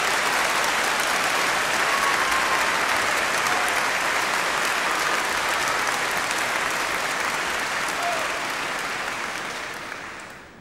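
Applause, a steady dense clatter of many hands clapping, fading out near the end.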